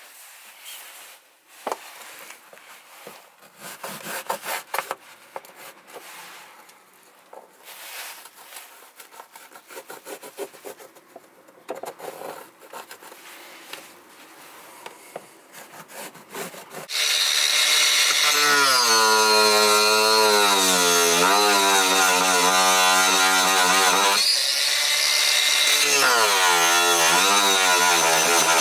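Pencil scratching and rubbing on plywood while the outline of a mounting plate is marked. About 17 seconds in, a Makita cordless mini circular saw starts cutting into the plywood van floor. It runs loudly, its pitch sagging and recovering as the blade loads up, with a short pause before it cuts again near the end.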